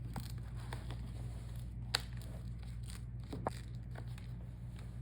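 Plastic clips of a laptop's front screen bezel snapping loose as the bezel is pried off: a handful of scattered sharp clicks, the loudest about two seconds in, over a steady low hum.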